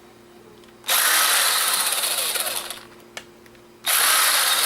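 Power screwdriver running in two bursts of about two seconds each, backing out the tiny screws from the camera's plastic case.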